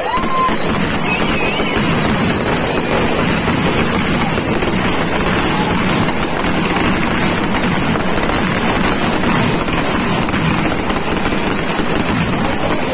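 Large ground fountain firework spewing a column of sparks: a steady, loud rushing hiss with no separate bangs.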